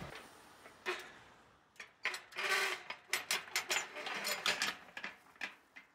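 Steel pipe bolt and latch of a chain-link gate being worked by hand: a run of metallic clicks, clanks and scrapes, thickest in the second half.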